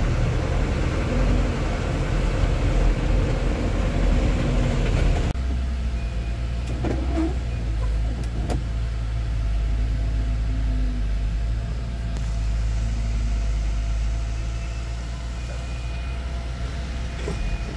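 Dump truck engine running under way, a steady low drone with rattle and road noise on top. About five seconds in the rattle drops away abruptly, leaving a steadier low engine hum.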